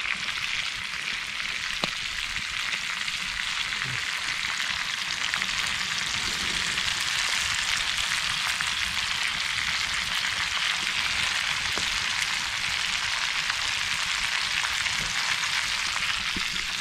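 Lionfish pieces frying in a pan over a campfire: a steady sizzle with a few faint pops.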